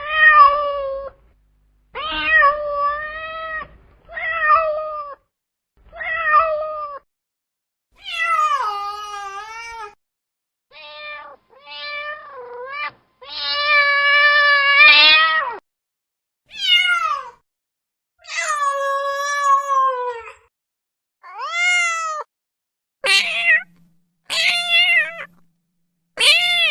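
Domestic cat meowing: a string of about fifteen separate meows with silent gaps between them, varying in pitch and length, the longest a drawn-out meow of about two seconds near the middle.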